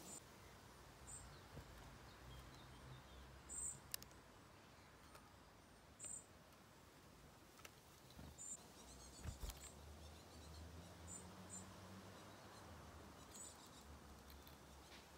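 Quiet garden ambience: short, faint, high-pitched bird chirps every second or two over a low steady hum, with a couple of light clicks.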